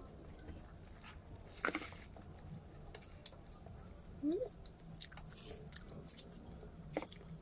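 Mouth chewing and biting into a balut (boiled fertilised duck egg), with soft crunching and scattered small clicks.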